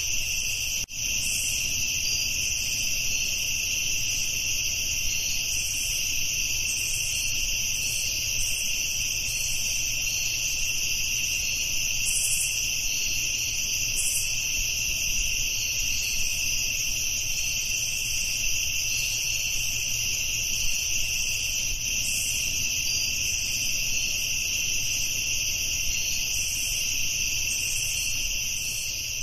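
Steady chorus of crickets trilling continuously in two high, unbroken bands over a faint low hum, with a brief dropout just under a second in.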